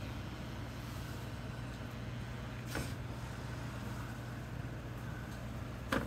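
Steady low hum with two sharp clicks, about a third of the way in and near the end, from hands handling a plastic RC buggy chassis and its transmitter.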